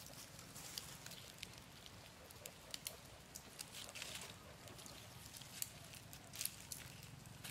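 Faint, irregular soft clicks and rustles from a mother macaque and her nursing infant moving close together, over a low steady hiss.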